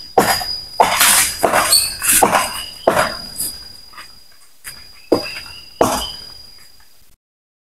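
Irregular sharp chopping knocks of a blade cutting the branches of a large durian tree, about a dozen strokes, thickest in the first three seconds. Under them runs a steady high insect buzz, with short rising chirps.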